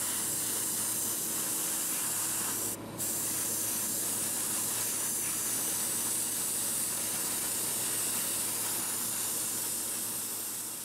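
Airbrush spraying thinned paint, a steady hiss that briefly cuts out a little under three seconds in.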